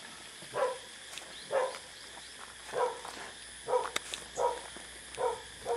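A dog barking: seven short barks, roughly a second apart.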